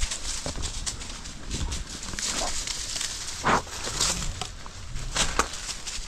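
Rustling and crackling of brush and twigs as hunters and dogs move through swamp undergrowth, with a few short snaps and one louder rustle a little past halfway.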